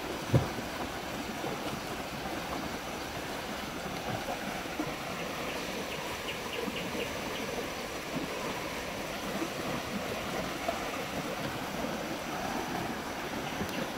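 Fast-flowing river rapids rushing steadily over rocks, with one brief thump just after the start.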